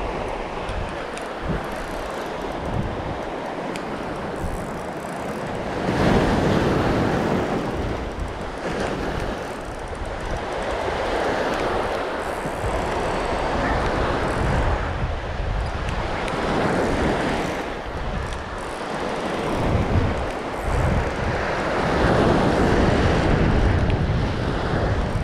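Surf breaking and washing over a pebble beach, swelling and fading in surges, loudest about six seconds in and again near the end, with wind buffeting the microphone.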